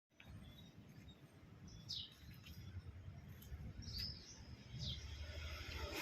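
Faint outdoor ambience: a few short, high bird chirps, about four spread through it, over a low steady rumble.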